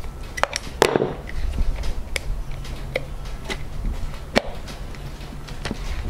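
Scattered sharp clicks and taps of a screwdriver working out the screws of a plastic 30 amp shore power receptacle and of the receptacle being handled and taken apart, over a steady low hum.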